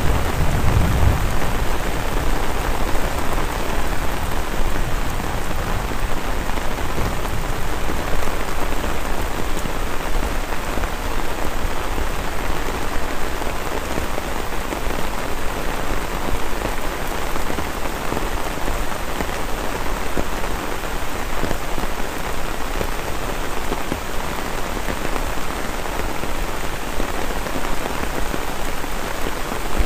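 Heavy rain falling steadily on fields, vegetation and a muddy lane: a dense, even hiss of rain that holds at one level throughout.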